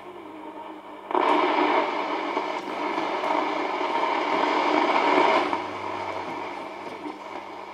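Hammarlund HQ-100 valve communications receiver giving out hiss and static with a faint steady hum underneath. About a second in the hiss jumps suddenly louder, and it falls back about four seconds later.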